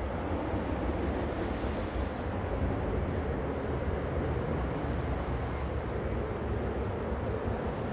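Boeing 737-700's CFM56-7B turbofan engines climbing out after take-off: a steady, low, hissing jet noise.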